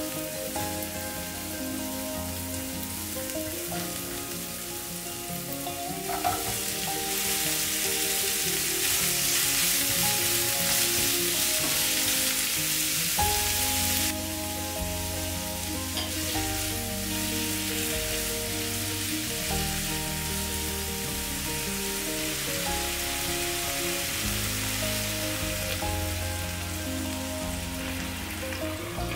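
Garlic, green onion and butterbur stalks sizzling as they stir-fry in perilla oil in a nonstick frying pan. The sizzle is loudest for several seconds in the middle, then drops suddenly. Soft background music plays underneath.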